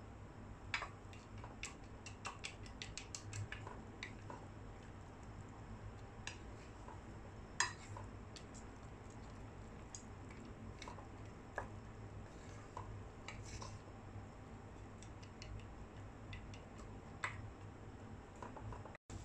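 Wooden spatula stirring fried boondi (gram-flour pearls) in sugar syrup in a nonstick pot: irregular soft clicks and taps as the spatula knocks the pot and the sticky pearls shift, with a quick run of clicks in the first few seconds. A faint low hum runs underneath.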